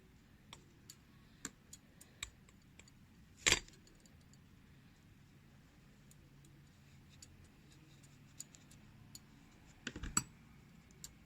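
Faint, scattered small clicks and taps from hands handling a small crocheted piece and crochet hook, with one sharper click about three and a half seconds in and a short cluster of clicks near the end.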